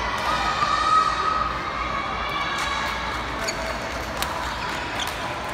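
Badminton rally in a reverberant sports hall: sharp racket strikes on the shuttlecock, about one a second from roughly two seconds in, over a din of voices and calls from the hall.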